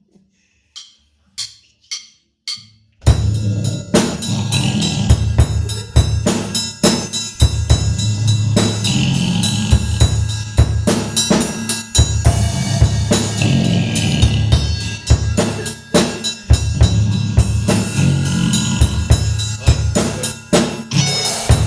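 Four evenly spaced clicks, then about three seconds in a metal band comes in at full volume, with a drum kit (bass drum and snare) driving a fast, steady beat under the band.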